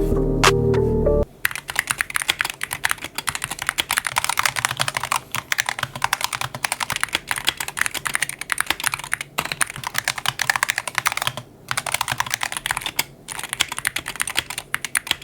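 Fast typing on a compact gaming keyboard, a dense run of quick key clacks with two short pauses near the end. A brief bit of music ends about a second in, before the typing starts.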